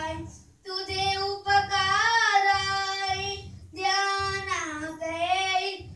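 A boy singing two long, drawn-out lines in a child's voice, the held notes wavering in pitch, with a short break between the lines.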